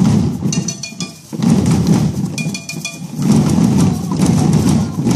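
Many children drumming together with sticks on overturned plastic buckets: a dense clatter in bursts with short breaks about a second and three seconds in. Bright metallic ringing hits join in briefly, before each break.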